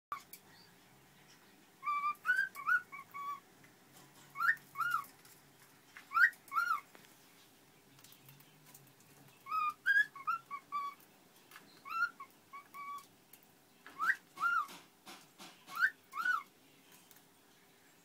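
Pet cockatiel whistling a learned tune: short phrases of rising and falling notes, repeated about every two seconds with pauses between.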